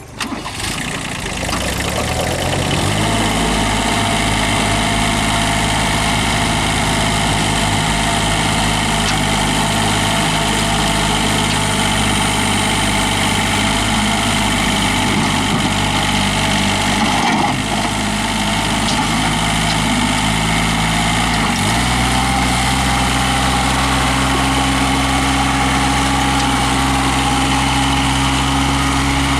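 Kubota B1750 compact tractor's three-cylinder diesel engine running steadily at idle, growing louder over the first two seconds. About two-thirds of the way through, the engine speed shifts and settles at a new steady pitch.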